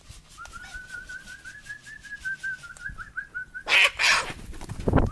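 A thin, warbling whistle held for about three seconds, then two loud, harsh cockatoo screeches in quick succession near the end.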